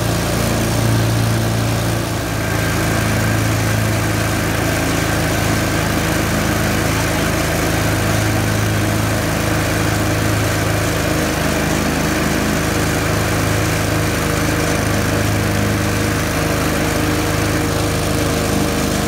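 Briggs & Stratton 24 hp Intek V-twin engine running steadily on a zero-turn mower while it mows grass, with a brief dip in the engine note about two seconds in.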